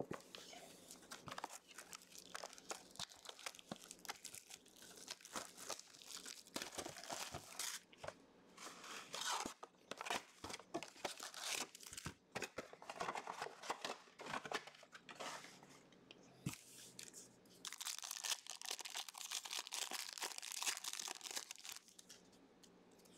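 Hands opening a hobby box of trading cards and tearing into the card packs: crackling cardboard and the crinkling, tearing of plastic pack wrappers, with many small clicks. A longer continuous crinkle comes about three-quarters of the way in, as a pack wrapper is ripped open.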